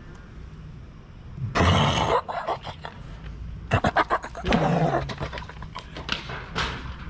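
A person roaring and growling loudly to scare cats. A harsh roar comes about one and a half seconds in, a few sharp clicks follow, and then a second growl that falls in pitch.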